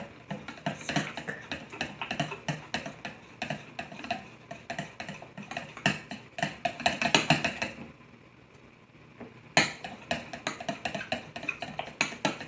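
A utensil clinking and scraping against a mixing bowl as slime ingredients are stirred, in quick irregular taps. It stops for about a second and a half about two-thirds of the way through, then resumes with a sharp knock.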